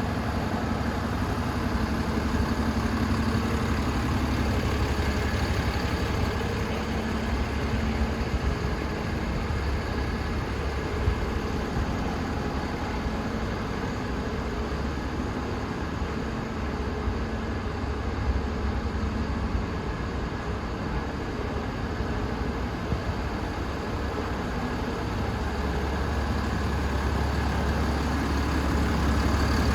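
DAF CF250 truck's 250 bhp turbocharged Euro 6 diesel engine idling steadily, a little louder near the end.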